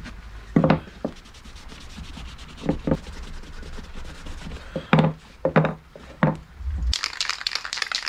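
Cloth rubbing wood stain onto a wooden block, with a handful of sharp wooden knocks as the block is turned and set against the workbench. Near the end comes a burst of paper crinkling.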